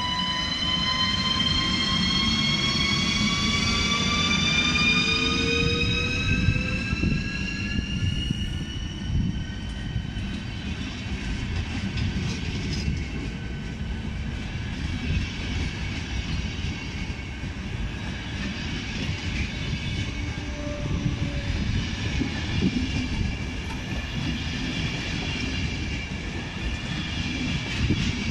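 ČD class 380 (Škoda 109E) electric locomotive pulling away with a passenger train. Several whining tones from its traction converters rise together in pitch over the first eight seconds or so as it accelerates. They then fade under the steady rumble and wheel clatter of the coaches rolling past.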